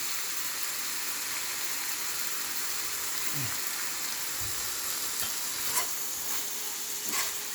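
Meat and vegetables sizzling in a pan on high heat with lemon juice just added, a steady frying hiss, with a few sharp clicks of a utensil against the pan in the second half.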